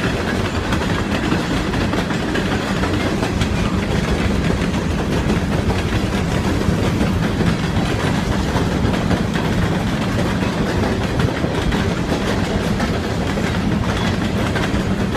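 Long CSX freight train rolling past at close range: a steady rumble of the cars with the wheels clacking over the rails.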